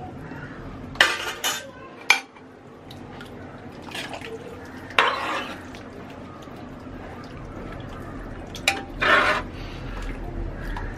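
Metal spoon and ladle clinking and scraping against a large metal cooking pot as salt is added and a thick curry is stirred. A handful of short clatters are spread across the stretch, with a longer scrape about five seconds in and another near the end.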